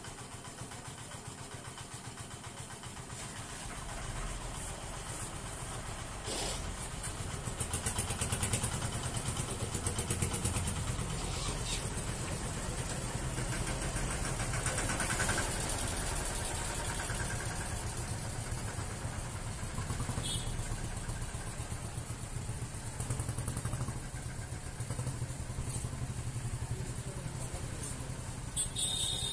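Motorcycle and tractor engines running and passing at close range, with a low engine hum that swells and fades as each vehicle goes by. A single sharp knock about twelve seconds in.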